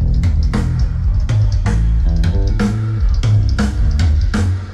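Band playing during a soundcheck: drum kit with a steady kick-drum beat under bass guitar and guitar, with a quick run of notes about two seconds in.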